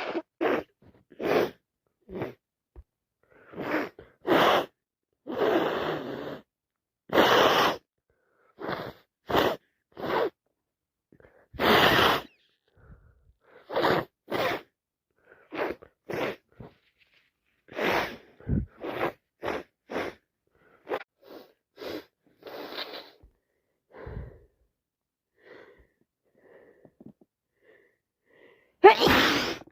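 A person with a heavy head cold sneezing and sniffing over and over, short sniffs between longer sneezes, with the loudest sneeze near the end.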